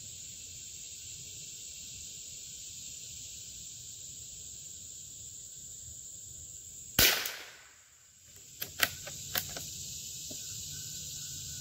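A single shot from a Howa M1100 bolt-action .22 LR rifle about seven seconds in, followed by a few light clicks as the bolt is worked. Crickets drone steadily throughout.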